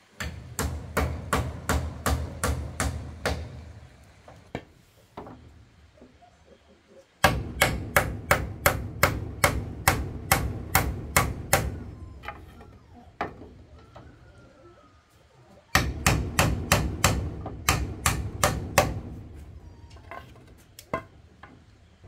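Hammer blows in three quick runs of regular strikes, about three or four a second, with short pauses between the runs.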